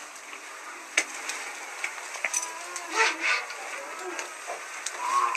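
Dry brushwood crackling and snapping at the fire of a clay tandoor oven: scattered sharp cracks over a low hiss, the sharpest about a second in.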